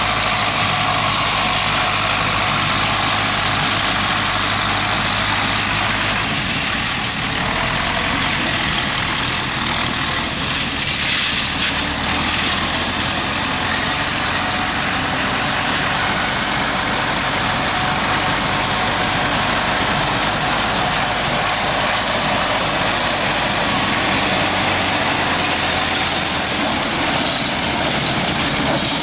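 Zetor tractor's diesel engine running steadily while it drives a rear-mounted drum mower cutting grass, the engine note mixed with a steady hiss from the spinning mower.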